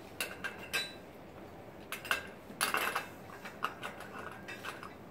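Metallic clinks and clicks as an oxygen regulator is handled and fitted on a portable oxygen cylinder, with a short louder burst about two and a half seconds in.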